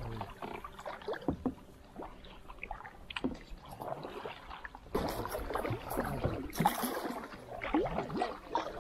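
Kayak paddle strokes in calm water: blades dipping and pulling, with water splashing and dripping off them in an uneven patter, louder from about halfway through.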